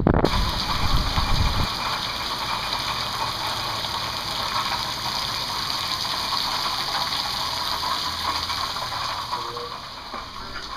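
Heavy rain falling steadily onto waterlogged grass and pavement, an even hiss. Wind buffets the microphone for the first second or two, and the rain sound drops away near the end.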